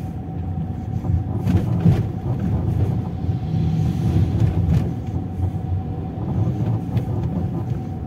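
Car driving, heard from inside the cabin: a steady low engine and road rumble with a thin constant whine above it, and a few soft knocks about one and a half, two and nearly five seconds in.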